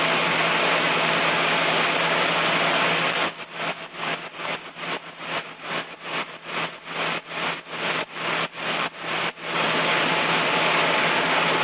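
Chainsaw engine running steadily at high speed. Through the middle its noise breaks into quick regular pulses, about three a second, before running steady again.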